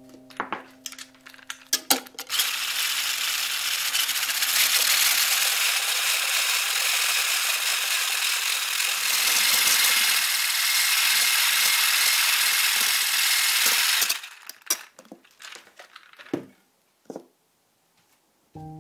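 A few clicks and knocks, then a KitchenAid hand blender with its whisk attachment runs steadily for about twelve seconds, whipping egg whites to a stiff foam in a plastic jug. It stops suddenly, followed by a few light knocks.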